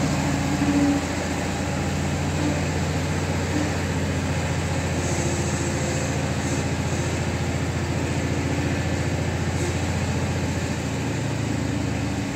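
HT20 riding tractor's engine running steadily at idle, shortly after its first cold start after long storage.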